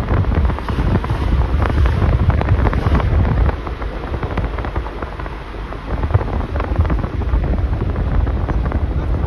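Wind buffeting a phone's microphone: a loud, gusty rumble that eases a little about a third of the way in.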